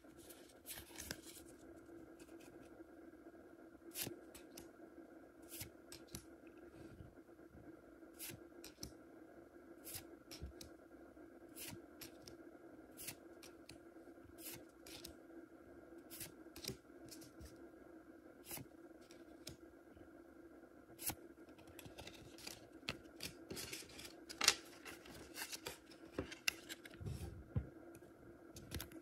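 Pokémon trading cards handled one by one: a string of short, sharp snaps and slides as each card is pulled off the stack, busier near the end, over a steady low hum.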